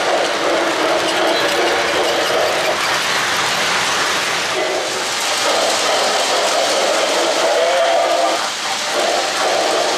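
O-gauge three-rail model trains running on the track: a steady rolling noise of wheels and motors that dips briefly twice, about halfway through and near the end.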